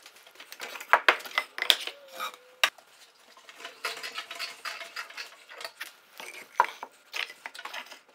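Sped-up footage of tools and metal hardware being handled: a rapid, irregular string of short metallic clinks, taps and clatters.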